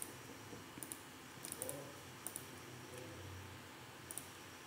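Faint computer mouse clicking: a handful of sharp ticks spaced about a second apart, some in quick pairs.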